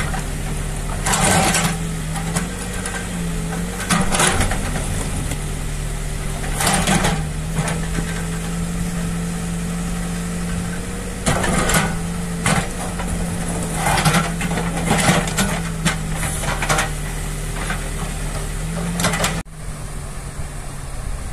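Backhoe loader's diesel engine running, its note rising and dropping as the hydraulics work, with repeated short clanks and scrapes of the bucket on broken asphalt slabs. Near the end it cuts to the steady rush of a river in flood.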